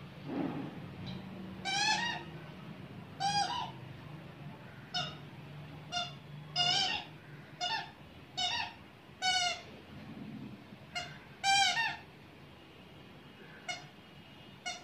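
A rubber squeaky ball toy being bitten and chewed by a dog, squeaking about a dozen times at uneven intervals. Each squeak is short and high-pitched, with a wavering pitch.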